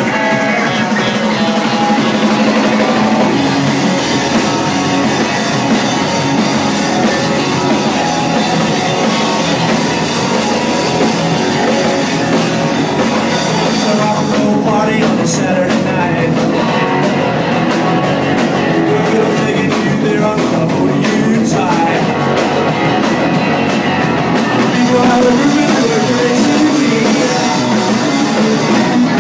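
Garage rock band playing live, loud and continuous, with the drum kit's cymbals crashing throughout.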